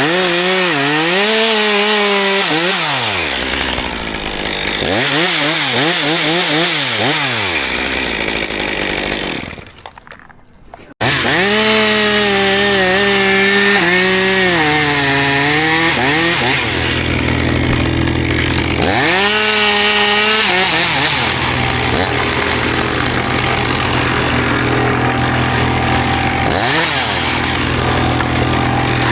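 Petrol chainsaw running and cutting cherry wood, revving up and down, its pitch sagging several times as the chain bites into the wood. It drops away almost to nothing about ten seconds in and comes back suddenly at full level.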